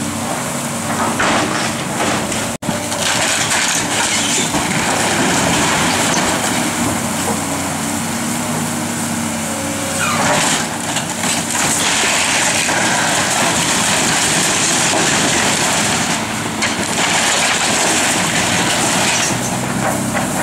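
Hydraulic excavator demolishing a wood-framed building: its diesel engine runs steadily under load while timber and roofing crunch and crack as the structure is pulled apart, over the steady hiss of a hose spraying water on the debris.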